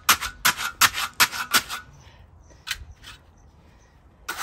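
Hand trowel chopping into wet concrete in a small footing hole, about three strokes a second for the first two seconds, compacting the mix. After that only two faint strokes as the surface is pressed flat.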